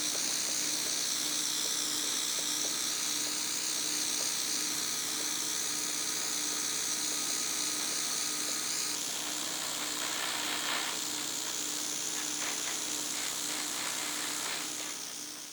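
A small high-speed power tool running steadily with a high-pitched whine and hiss. Its sound changes about nine seconds in, then fades away at the end.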